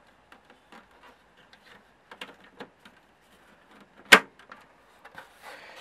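Plastic front panel of an Amstrad MP-3 TV tuner case being handled and fitted, with light clicks and rustles of plastic, then one loud sharp snap a little after four seconds in as it clicks into place.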